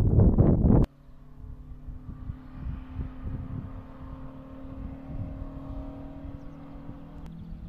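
Wind buffeting the microphone for the first second, then, after a sudden cut, the distant engine of a race car on the road: a steady engine note that slowly grows louder as the car approaches.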